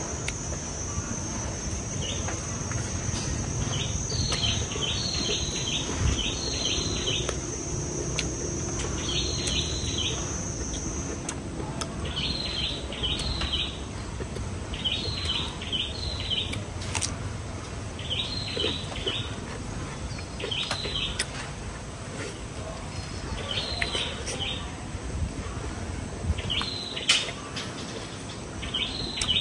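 A bird chirping in quick clusters of two to four short high notes, repeating every second or two. Under it for the first third is a steady high insect buzz that then stops.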